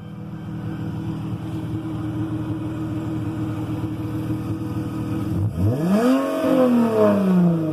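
Car engine idling steadily, then revved once about five and a half seconds in: the pitch climbs quickly and falls back toward idle near the end.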